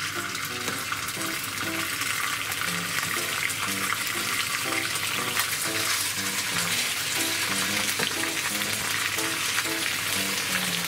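Miso-marinated chicken thighs sizzling skin side down in hot oil in a frying pan, a steady dense hiss. Light background music with short melodic notes plays underneath.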